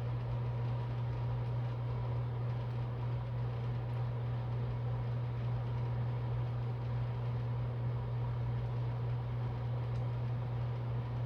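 A steady low hum with a faint even background hiss, unchanging throughout.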